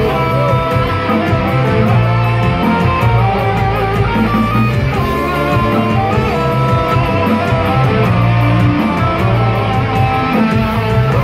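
A live band playing loud, dense rock music led by electric guitar, with heavy bass, heard through a phone's microphone in the crowd.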